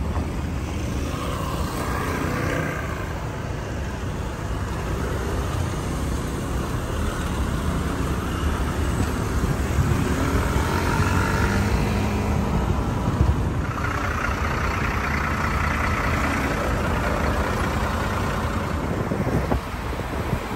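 City road traffic: vehicles driving past over a steady low rumble, several swelling and fading as they go by, one with its engine pitch shifting about halfway through.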